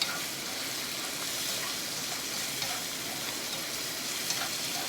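Squid stir-frying in a hot pan with oyster sauce and soy sauce, sizzling steadily, with a few faint clicks.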